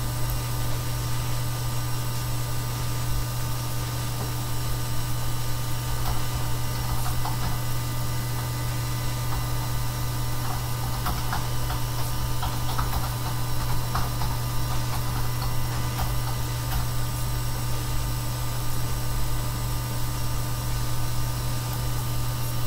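A steady low hum under a constant hiss, with faint scattered ticks through the middle.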